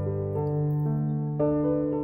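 Background piano music: sustained notes and chords that change about every half second.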